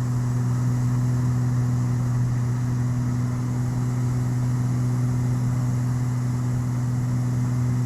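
Beechcraft G58 Baron's twin six-cylinder piston engines and propellers in steady cruise: an even low drone with a fainter hiss above it.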